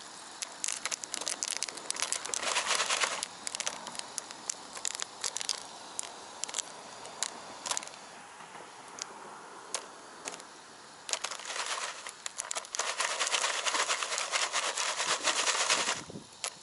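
Jiffy Pop foil pan shaken over a camp stove: long stretches of rattling, scraping hiss with the oil sizzling, and scattered sharp clicks as the first few old kernels begin to pop.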